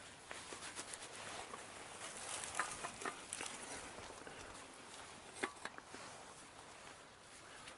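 Faint rustling with a few light clicks and taps scattered through it, from a person shifting about in a hide of camouflage netting.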